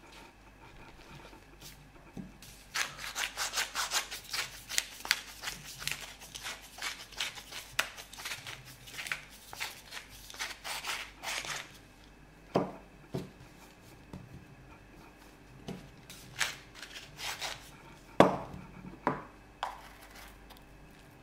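Wooden pepper mill grinding peppercorns in a rapid crackling run lasting several seconds, then a few knocks and short bursts of grinding, with the loudest knock near the end.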